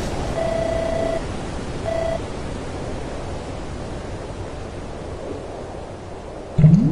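Steady rushing of a waterfall, slowly fading, with two short electronic beeps in the first two seconds. Near the end a sudden loud sound rises in pitch and then holds a low steady tone.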